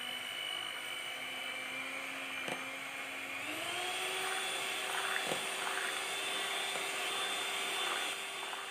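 Electric hand mixer whirring steadily as its beaters whip chilled cream in a ceramic bowl; about three seconds in its pitch rises and holds at a higher speed, with a couple of faint clicks.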